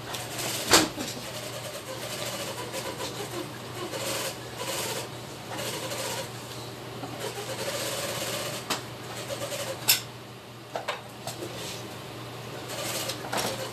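Thread being pulled through leather while a steering wheel cover is hand-stitched: repeated short rasping pulls and rubbing. Two sharp clicks stand out, about a second in and near ten seconds in, over a steady low hum.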